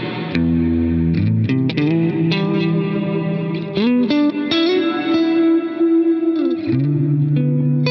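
Electric guitar played through a FLAMMA FS02 reverb pedal: picked single notes with a couple of string bends, then a held chord that rings out near the end.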